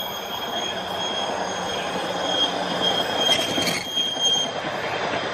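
A pickup truck drives past: tyre and engine noise that swells to its loudest a little past the middle, then eases off. Faint steady high-pitched tones sound throughout.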